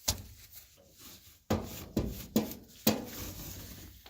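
Microfiber duster wand scraping and knocking inside a clothes dryer's lint-trap slot while it is worked down to pull out lint: rubbing noise with a sharp knock at the start and four more in quick succession past the middle.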